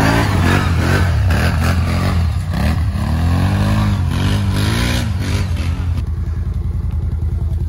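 ATV engine revving hard over and over, its pitch rising and falling in quick swells, then settling to a steadier run about six seconds in.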